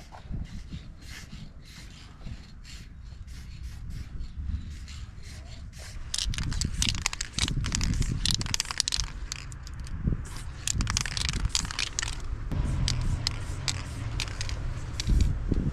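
Aerosol spray-paint can hissing in many short bursts as the nozzle is tapped and released. The bursts are sparse and faint at first, then come thicker and louder from about six seconds in.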